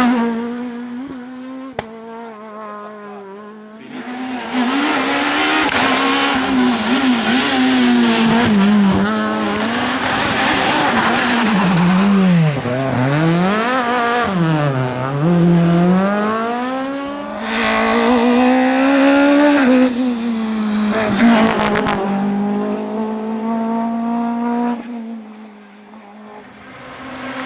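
Renault Clio S1600 rally car's 1.6-litre four-cylinder engine driven hard on a stage, the revs climbing and dropping again and again through gear changes and lifts off the throttle. It is quieter at first, loudest through the long middle stretch, and fades near the end.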